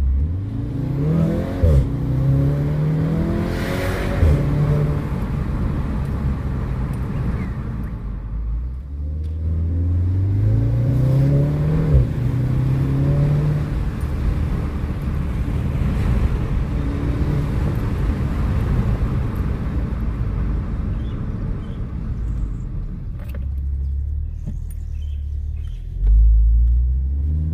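VW Golf 7 R's turbocharged 2.0-litre four-cylinder engine, fitted with a downpipe, accelerating hard. Its pitch climbs and steps down several times in the first few seconds through quick upshifts, climbs again about ten seconds in, then runs on more steadily before a loud low surge near the end.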